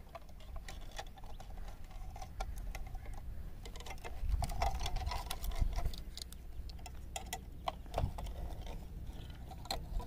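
Irregular light clicks and crackles of a clear plastic bottle being handled and thin wire being twisted around a tree branch to hang it, over a low rumble.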